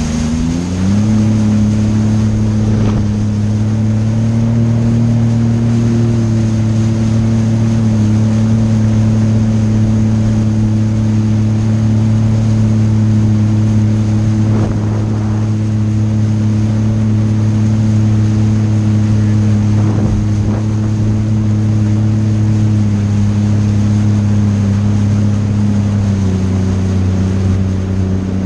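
Jet ski engine climbing in pitch during the first second as the throttle opens, then running steadily at speed, with water rushing beneath the hull. The pitch eases a little lower a few seconds before the end.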